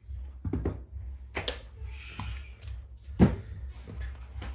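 Light knocks and clicks of a solder reel and LED strip tape being handled on a tabletop: several scattered through, the sharpest about three seconds in, over a low steady hum.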